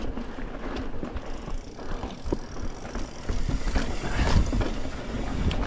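Mountain bike ridden down a rocky trail: tyres rolling over rock, with a steady run of clicks and knocks as the bike rattles over bumps, over a low rumble of wind on the microphone. It gets somewhat louder about halfway through as the pace picks up.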